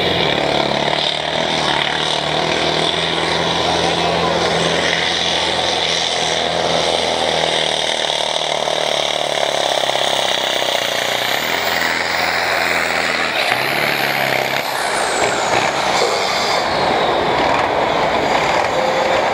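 Farm tractor's diesel engine running hard under full load as it pulls a weight sled, its smoke stack belching black smoke. About two-thirds of the way through the engine note drops, and a high whistle falls away.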